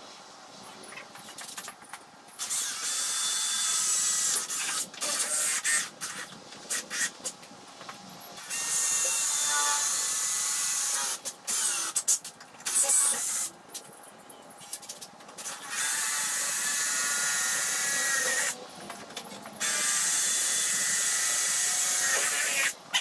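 Power drill running in repeated bursts of one to three seconds into the wood of the table's frame, with a faint motor whine and short pauses between bursts.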